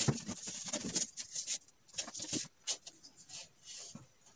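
Plywood-faced foam beehive wall panels being handled and stood together on a wooden workbench: irregular light knocks, taps and short scrapes.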